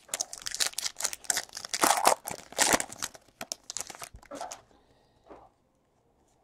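The wrapper of a 2017 Panini Chronicles baseball card pack being torn open and crinkled by hand: a dense, irregular crackling that stops about four and a half seconds in.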